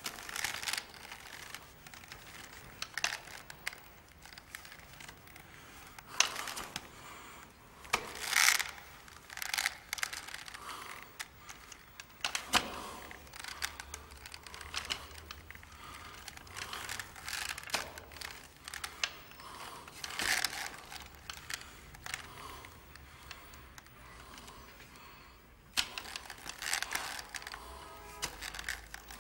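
Irregular clicks and rustling, with louder clacks about eight and twenty seconds in.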